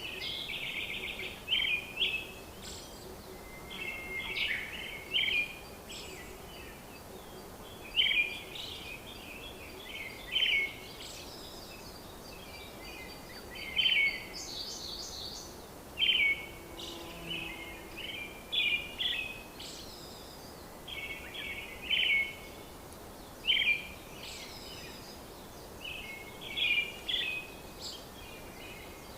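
Birds chirping in short bursts of rapid calls every second or two, over a steady background hum.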